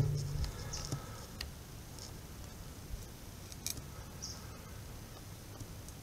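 Low background hiss with a few faint, scattered clicks.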